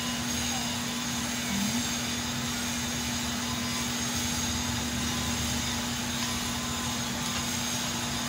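Steady background hum and hiss with one constant low tone, unchanging throughout.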